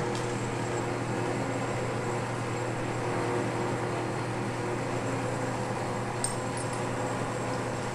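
South Bend 10K metal lathe running with no cut being made, a steady motor hum, with one small click about six seconds in.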